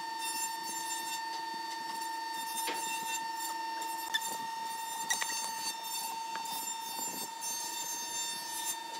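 A steady high-pitched machine whine, with a lower pulsing hum that stops about four seconds in. A few light knocks come as curved wooden handrail pieces are handled and fitted together.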